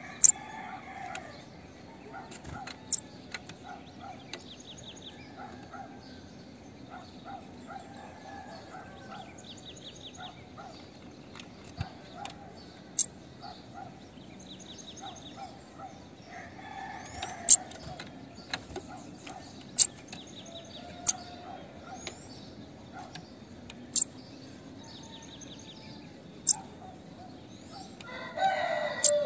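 Female bananaquit calling: loud, sharp, very high chips every one to four seconds, mixed with short, buzzy, hissing trills. A lower, longer call comes three times in the background.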